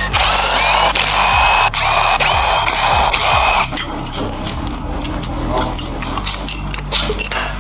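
Power tool running in about four short bursts, each with a rising whine, then a rapid series of metallic clicks and ticks.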